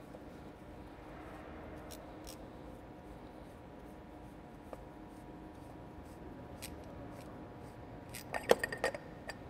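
An engine oil scavenge filter bowl being unscrewed by gloved hand from its head assembly: faint rubbing and scattered light metallic clicks, then a quick run of sharp clicks near the end, over a steady faint hum.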